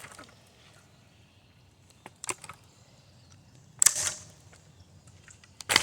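Hard blows striking a ceiling fan: separate sharp knocks with a short ring after each, at uneven intervals, the loudest just before the middle and at the very end.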